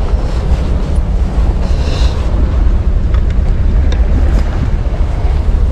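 Wind buffeting the microphone in a steady, heavy rumble, with the wash of sea waves beneath it.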